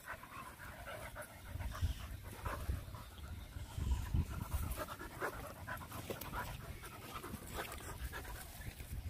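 Two dogs wrestling, panting hard, with many short, irregular scuffling noises.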